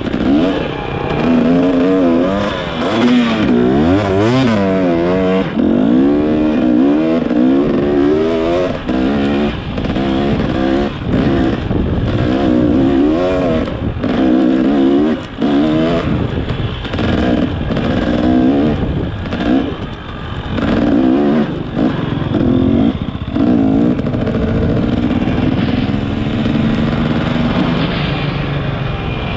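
Motorcycle engine being ridden hard, its pitch climbing and dropping over and over as the throttle is worked and gears change, with short dips between pulls.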